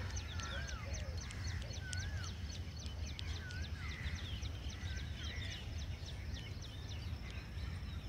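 Birds calling in an early-morning chorus: a wavering whistled call repeats about every second and a half over many short, high chirps. A steady low rumble runs underneath.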